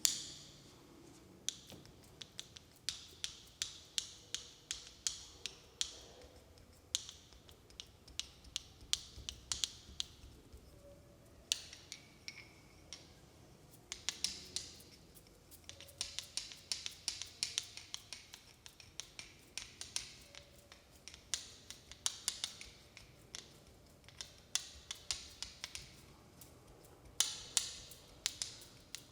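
Hand sounds from a head massage: a long run of sharp snaps and taps, some in quick clusters, with a soft hiss of rubbing in stretches.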